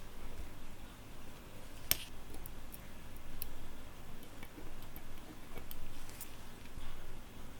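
Sparse light clicks and taps, with one sharper click about two seconds in.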